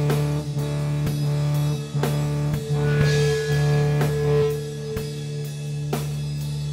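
Slow instrumental stoner doom jam: a sustained low guitar drone over sparse drum hits about once a second. A cymbal rings out around three seconds in, with a higher held note above the drone.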